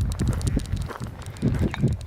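Footsteps of a person walking: uneven low thuds a few times a second, with scattered light clicks.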